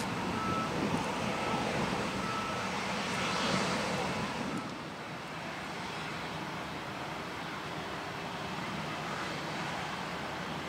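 CFM56 jet engines of a Boeing 737-700 moving along the runway, a steady rushing roar heard from beside the runway. The roar eases a little about halfway through.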